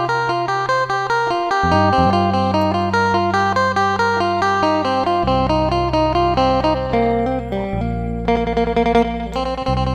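Amplified phin, the Isan plucked lute, playing a quick run of plucked melody notes over long-held low drone notes that shift pitch a few times.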